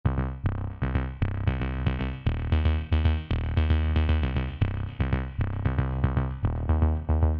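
Electronic background music: a steady beat of short, pitched notes over heavy bass.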